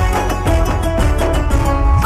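Background music: an up-tempo song with a steady beat and plucked strings in the instrumental part.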